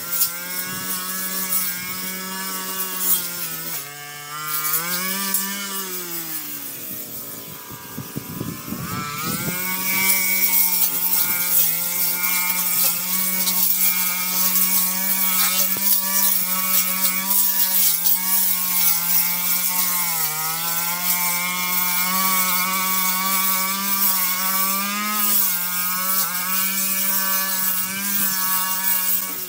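A brush cutter's small engine runs at high revs for the whole stretch, cutting weeds and grass. About a third of the way in it drops back toward idle, then revs up again. After that it holds a high, steady pitch with small dips as it bites into growth.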